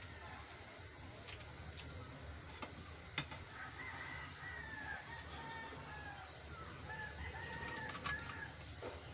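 Faint rooster crowing, a few drawn-out, broken calls starting about four seconds in and lasting until near the end, over a low steady hum, with a few light clicks.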